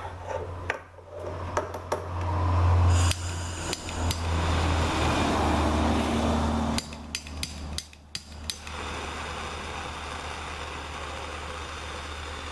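A heating tool running while a plastic EVAP tube is warmed: a loud steady rushing noise with a low hum, then several sharp clicks a little past the middle, after which it settles into a quieter steady hiss.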